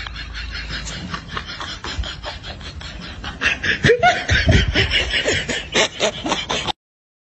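Human laughter in quick repeated bursts, growing louder about halfway through, then cutting off suddenly near the end.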